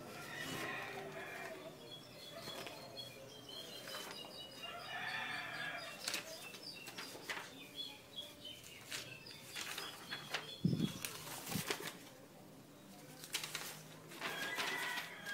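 Glossy paper posters rustling and crackling as they are handled and shifted, with a low thump about ten and a half seconds in.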